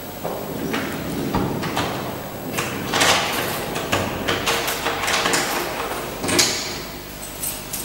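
Wooden interior door being pulled shut and its lever handle and lock worked: a string of irregular clicks, rattles and rustles.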